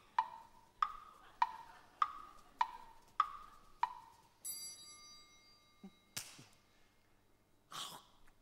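Wood blocks struck in a steady pattern, seven knocks about 0.6 s apart alternating between two pitches. They are followed by a single held ringing note and two short noisy bursts near the end.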